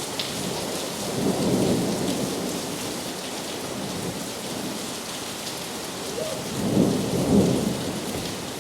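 Heavy rain falling steadily, with two low rolls of distant thunder: one starting about a second in, and a slightly louder one near the end.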